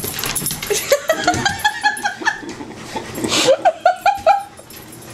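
A person laughing in two runs of short, quick pulses, about a second in and again near the end.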